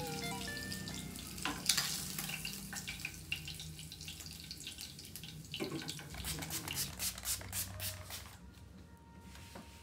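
Fish frying in a pan of hot oil, sizzling, as pieces are lifted out with tongs into a wire strainer, with oil dripping and light clicks of metal utensils.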